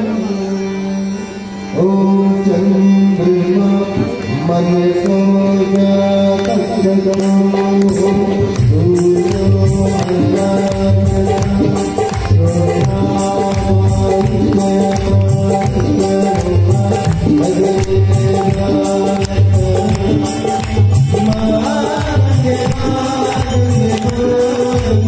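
Hindu aarti hymn, sung with long held notes over instruments; about eight seconds in, a steady hand-drum beat joins.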